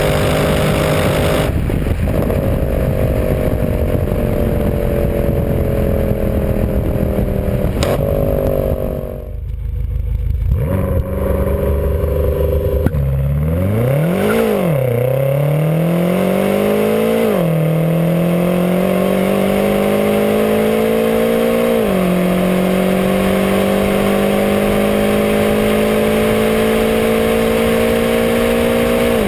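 Mercedes C63 AMG's 6.2-litre V8 running at high revs near top speed, its pitch sinking slowly. About thirteen seconds in, a BMW M5 F10's twin-turbo 4.4-litre V8 accelerates hard. Its note rises through the gears, with the pitch dropping sharply at each upshift, four times.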